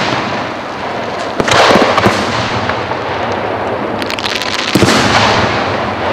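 Aerial fireworks bursting: loud bangs about one and a half seconds in and again near five seconds, a run of sharp cracks in between, and crackling between the bangs.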